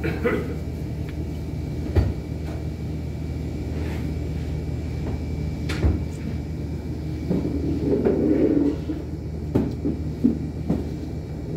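A steady low hum or rumble, with a few sharp knocks, the loudest about two seconds in, and a short swell of sound around eight seconds in.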